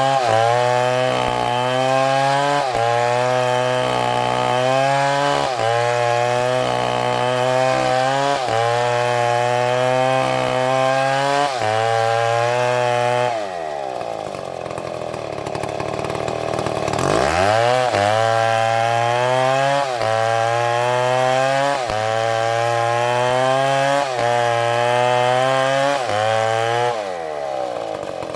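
STIHL chainsaw at full throttle cutting wood, its pitch dipping and recovering every second or two as the chain bites. About halfway through it drops back to idle for a few seconds, then revs up and cuts again, easing off near the end.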